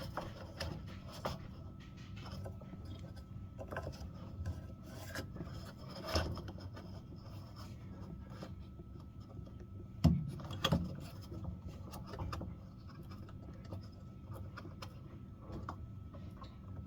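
Quiet rubbing and scraping of a rubber drive belt being worked onto the pulleys underneath a GE washing machine, with a few small knocks, the loudest about ten seconds in.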